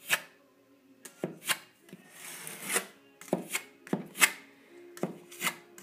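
Filling knife scraping filler onto a plaster edge in short strokes, roughly two a second, with one longer drawn-out scrape about two seconds in.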